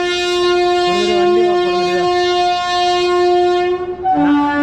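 A train horn sounding one long, steady blast that steps down to a lower pitch about four seconds in, with a brief voice heard under it about a second in.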